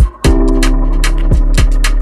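Background music with a steady electronic beat: kick drum and hi-hat over held bass and synth notes.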